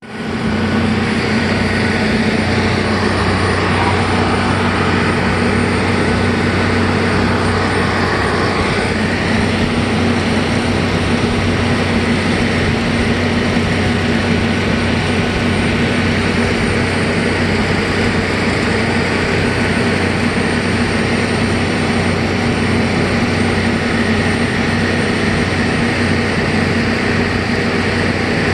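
River ferry's engine running steadily during the crossing: a constant low drone with a hum and a broad hiss over it.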